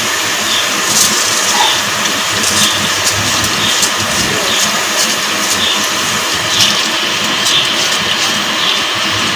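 Steady loud rushing of a pot of water boiling on the stove as soaked rice is tipped in from a plate, with faint light ticks now and then.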